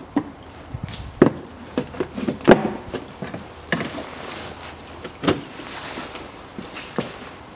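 Irregular sharp clicks and knocks of hard plastic as a car's side splash shield is worked loose and its push clips are pried out, the loudest about two and a half seconds in.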